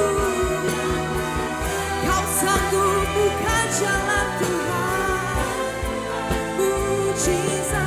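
Church worship band playing the song instrumentally with a steady drum beat, sustained chords and a gliding melody line over it.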